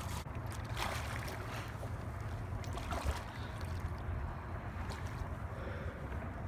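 Wind rumbling on the microphone, with a few short splashes as a hooked brown trout thrashes at the water's surface.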